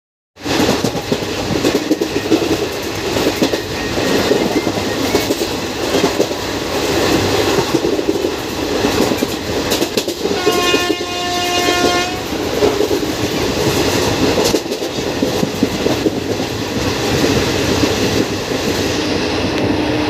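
A train running on its rails, heard from on board: a steady rumble with the clatter of wheels over the track. About ten seconds in, a train horn sounds once and holds for about a second and a half.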